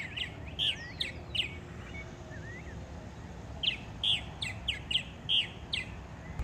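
Purple martins chirping and gurgling: quick clusters of short notes, then a lull with a few soft gurgles, then another run of chirps.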